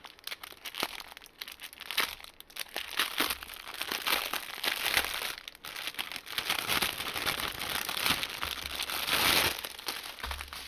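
Plastic packaging of a diamond-painting kit being handled, crinkling irregularly with small clicks. It is most likely the small bags of resin drills.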